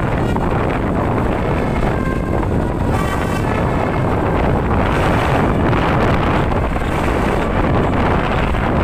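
Heavy wind buffeting the microphone over road and vehicle noise on the move. Faint, short horn tones change pitch about two and three seconds in.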